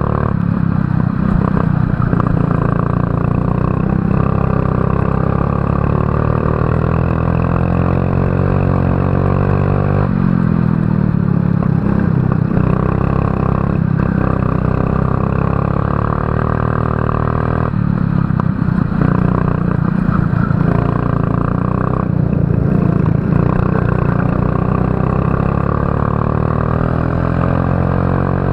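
Racing kart engine heard on board, running hard with its pitch climbing slowly down the straights and dropping sharply each time the throttle is lifted for a corner, a few times over.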